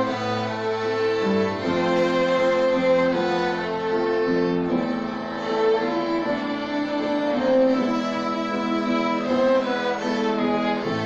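A children's violin ensemble playing a melody together, the bowed notes held and changing about once a second.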